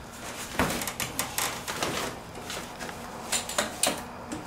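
Rummaging through stored clutter: wooden boards and cardboard shifted aside and plastic bags handled, giving irregular knocks, scrapes and rustling. The louder knocks come about half a second in and again near the end.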